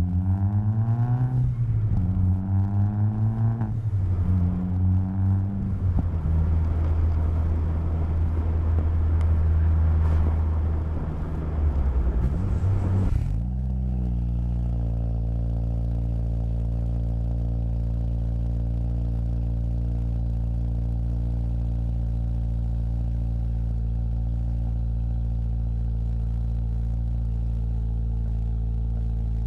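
2015 Subaru WRX's turbocharged flat-four through a Magnaflow cat-back exhaust, heard from inside the car, pulling through the gears under moderate throttle with the pitch rising and dropping back at each shift, then running as a steady rumble. About halfway in, after a cut, the engine idles steadily just after a cold start, fitted with a P&L downpipe and the Magnaflow cat-back.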